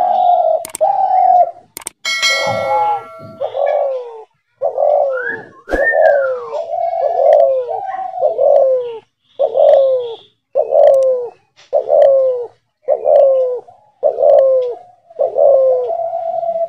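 Trap-cage decoy dove cooing over and over, about one coo a second, each coo falling in pitch. About two seconds in there is a brief, shriller sound with many overtones.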